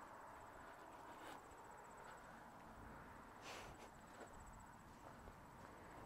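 Near silence: faint outdoor ambience with a thin, steady, high-pitched insect trill, such as a cricket, and a soft rustle about three and a half seconds in.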